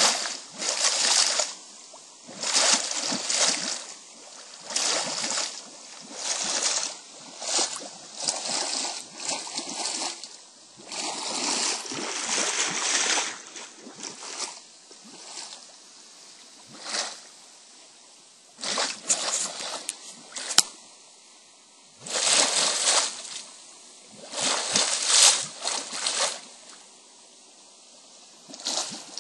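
Lake water churning and splashing in irregular surges as it boils up over the outlet of a water-transfer pipeline. Each surge lasts a second or two, with quieter lulls between them.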